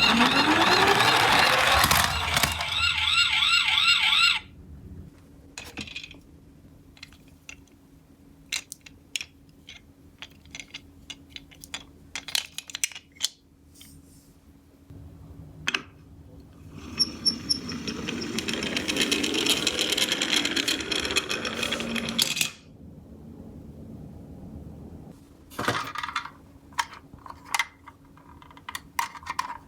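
A toy ambulance's electronic siren wails and cuts off about four seconds in. Small plastic-and-metal clicks and clacks of the toy cars follow, with a stretch of several seconds of toy-car wheels rolling down the slope in the middle, and more clicking near the end.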